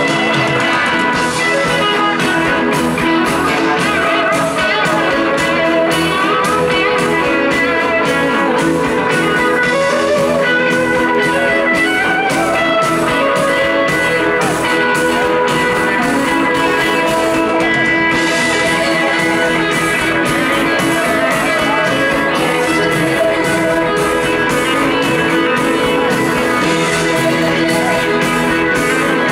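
Live rock band playing: electric guitar, bass guitar and drums with a steady beat.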